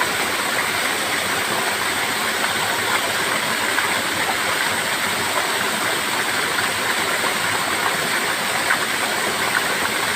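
A waterfall's falling water making a steady, even rush.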